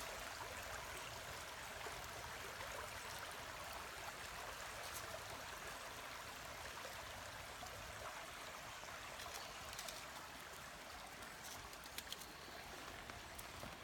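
Faint, steady rush of flowing river water, with a few faint clicks near the end.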